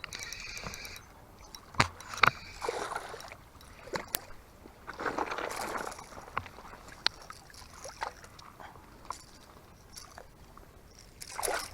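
Scattered light knocks and clicks with a few short sloshes of water, the handling noise of fishing from a small boat.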